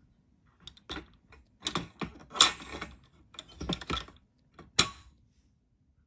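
Wire grille door of a plastic pet carrier rattling and clicking as a hand handles it, in several bursts of short metallic clatter, the loudest about two and a half seconds in and a last sharp click near five seconds.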